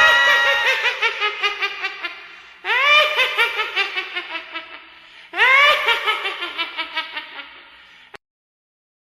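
A shrill cackling laugh sound effect, like a witch's cackle, repeated: each cackle opens with a rising shriek and breaks into rapid 'heh-heh-heh' pulses that fade. A second and third cackle begin a bit under 3 s and just over 5 s in, and the last cuts off suddenly near the end.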